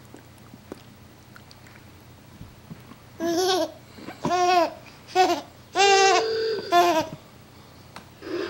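Infant's high-pitched squeals and babbling, five short bursts with rising and falling pitch that begin about three seconds in.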